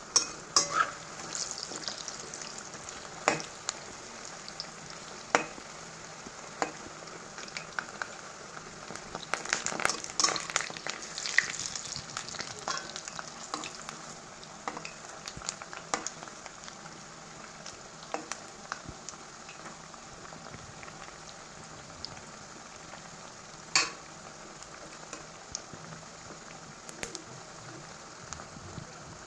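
Dal pakoras deep-frying in a metal wok of hot oil, a steady sizzle throughout. Clicks, taps and scrapes come from a metal spatula turning the fritters, thickest around ten seconds in, with a sharp knock near the end.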